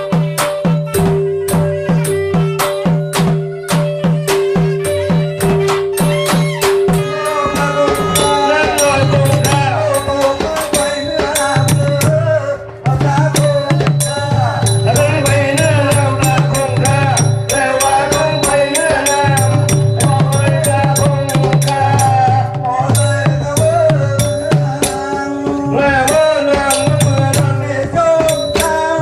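Southern Thai Nora ensemble music: fast, steady clicking of small cymbals and clappers over a repeating low drum pattern and a sustained tone. About eight seconds in, a wavering melody joins.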